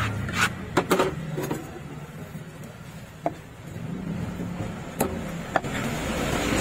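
A hand fish scaler scraping over a red snapper in a few quick strokes during the first second and a half. Then three sharp, separate knocks as the fish and knife are handled on the wooden chopping block.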